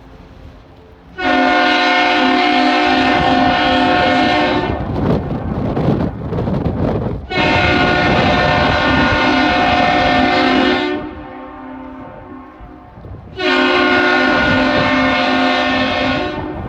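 Horn of the lake freighter Paul R. Tregurtha sounding three long blasts, each held for about three and a half seconds. Gusty wind rumbles between the blasts.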